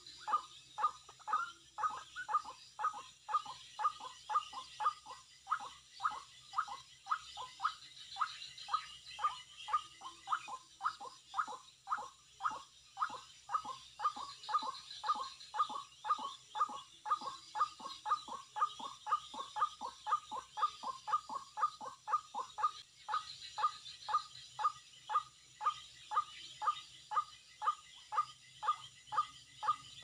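White-breasted waterhen call: a steady, unbroken series of short, slightly falling notes, about two to three a second.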